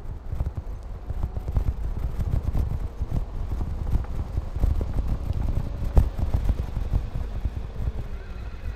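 Rental electric scooter rolling along a paved path: the small hard wheels rattle and knock irregularly over the surface, over a steady low rumble, with one sharper knock near the middle.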